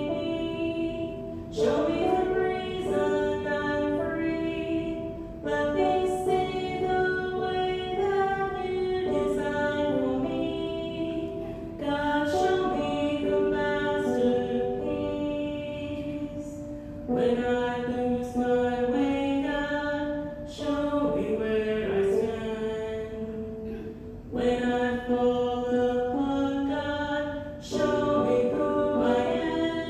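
A woman singing a song while accompanying herself on a Casio electric keyboard, with long held notes and new chords struck every few seconds.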